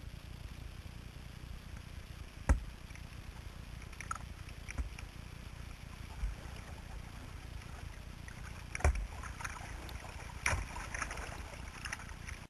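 Kayak being paddled down a shallow river: a steady low rumble of water against the boat, with splashes and several sharp knocks. The loudest knocks come about two and a half seconds in and twice near the end.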